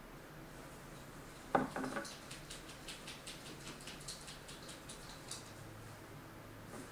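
Small handling noises at a fly-tying vise: one knock about one and a half seconds in, followed by a run of faint, light ticks at about four or five a second that stop a little after five seconds.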